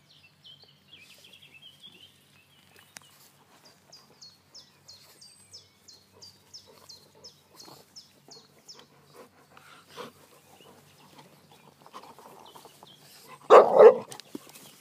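Two dogs play-wrestling, with faint scuffling, then one dog gives a short, loud double bark near the end.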